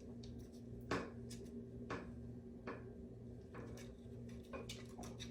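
Faint, scattered light clicks and taps from handling hair-curling tools, roughly one a second, over a low steady hum.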